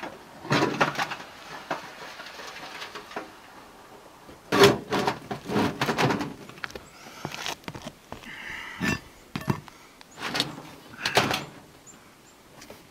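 Metal roof flashing and chimney pipe being shifted and pressed down on asphalt shingles: several irregular clusters of knocks and scrapes, with quieter handling noise between them.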